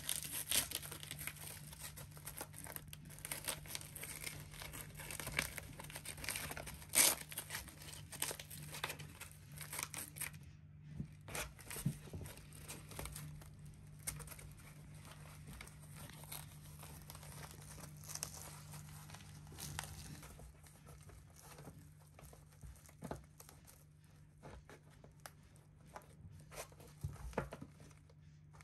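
Hook-and-loop (Velcro) straps of a fabric foil-board foot strap being peeled apart and pressed together, with rustling of the strap material: a string of sharp rips, busiest in the first ten seconds, then quieter, sparser handling. A steady low hum runs underneath.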